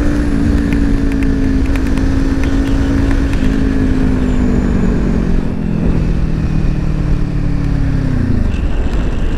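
Motorcycle engine running at a steady cruising note under heavy wind noise, then its pitch falls over about two seconds near the end as the bike rolls off the throttle and slows.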